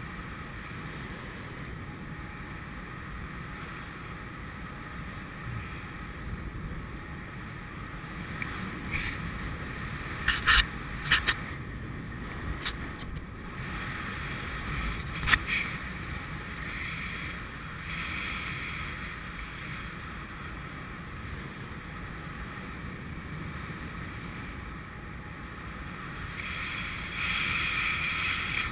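Wind rushing over an action camera's microphone in paraglider flight: a steady rumble, with a few sharp knocks about ten and fifteen seconds in and a louder gust near the end.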